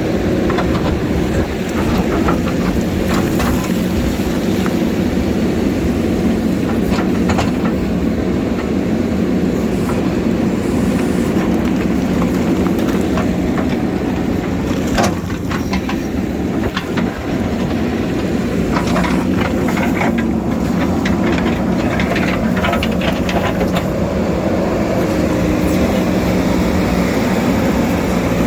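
JCB backhoe loader's diesel engine running steadily under load, with clanks and scrapes of the bucket working against rock, one sharp knock about halfway through and a run of them soon after.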